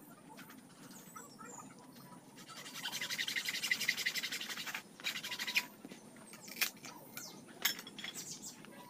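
Knife blade scraping along split bamboo strips in a rapid, chattering scrape, loudest from about three to five seconds in, then a shorter scrape and a few sharp clicks of bamboo near the end.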